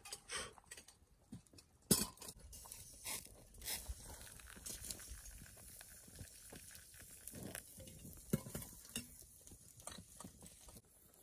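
Scattered light clicks and knocks at an uneven pace, the sharpest about two seconds in and another just past eight seconds in.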